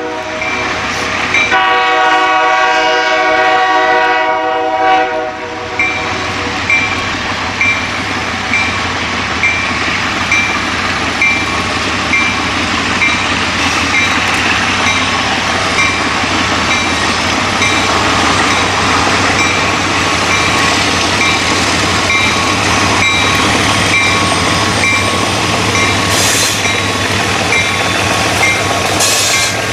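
Alco RS-18u diesel locomotive sounding one long multi-note horn blast for about four seconds. The horn stops about five seconds in, and the locomotive bell then rings steadily, roughly three strokes every two seconds. Under the bell, the diesel engine's rumble and the train's running sounds grow as the locomotive approaches and passes close by.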